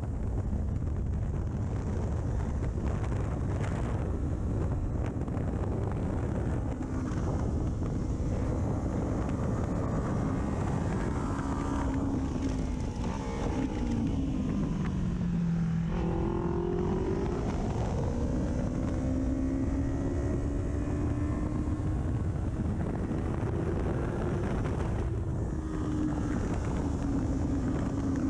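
Kawasaki Ninja 400 parallel-twin engine through an aftermarket full exhaust, heard onboard at speed under heavy wind rush. About halfway through, the engine note drops as the bike slows, then climbs steadily again as it accelerates.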